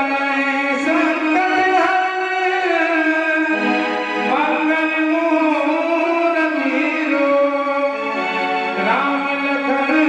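Indian devotional music: a melody that slides between notes over a steady held note.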